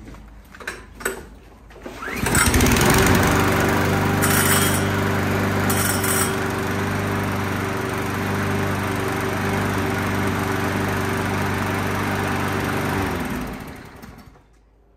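Oleo-Mac GV53TK lawn mower's four-stroke engine starting about two seconds in, freshly refilled with oil, running steadily for about eleven seconds, then cutting out and winding down.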